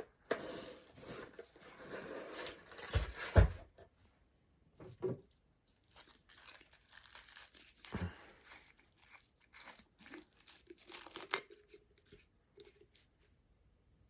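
Handling noises from working on a chipped skateboard deck: rustling, scraping and tearing sounds with a few sharp knocks, two close together about three seconds in and another about eight seconds in, stopping near the end.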